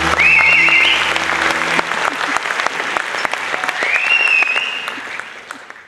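Audience applauding at the end of a live song, with the band's last held bass note dying away in the first second and a half. A high whistle cuts through twice, and the sound fades out near the end.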